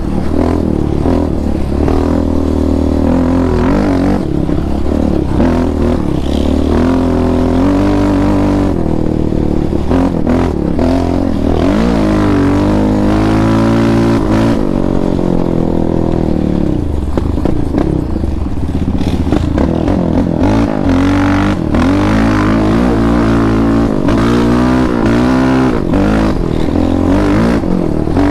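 Yamaha Raptor 700R quad's single-cylinder four-stroke engine running under riding load, heard from the rider's seat; its pitch rises and falls repeatedly with throttle and gear changes, with stretches of rising and falling revs around the middle and again later.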